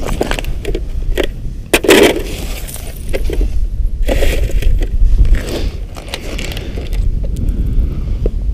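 Boots crunching and scuffing on snow-covered lake ice, with knocks and clinks from a plastic tip-up being handled. The loudest crunch comes about two seconds in.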